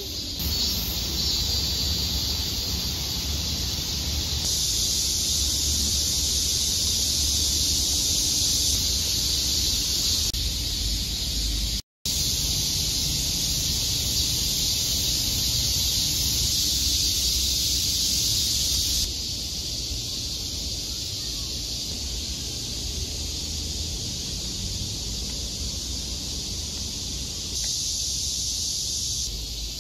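Cicadas droning in the trees as a steady, high, hissing chorus over a low outdoor rumble. The sound shifts in level several times and drops out briefly about twelve seconds in.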